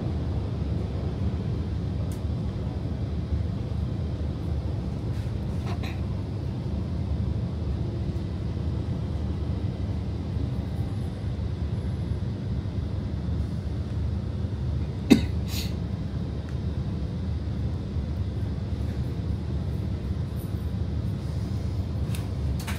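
Stockholm metro (tunnelbana) train running with a steady low rumble, heard from inside the car as it pulls into a station and slows to a near stop. One short, sharp knock about fifteen seconds in.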